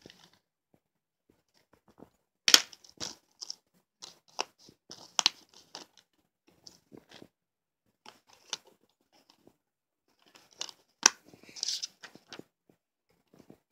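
Plastic Blu-ray case being handled and opened, giving a scatter of sharp clicks and snaps, the loudest about two and a half seconds in and again near eleven seconds. A paper insert crinkles briefly near the end.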